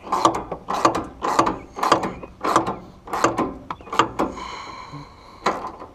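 Hand ratchet wrench being worked back and forth, clicking in quick strokes as a gas-tank mounting bolt is driven in. The ratcheting stops about four seconds in, with one more click near the end.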